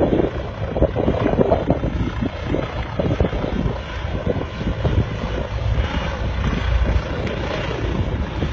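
T129 ATAK attack helicopter flying overhead: the four-blade main rotor and twin turboshaft engines, a steady low rumble with uneven thumps.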